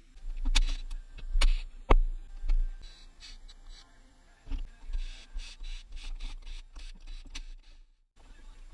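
Hand tools and metal engine parts knocking and clinking during an engine teardown: a few sharp separate knocks, then a run of quicker clicks later on.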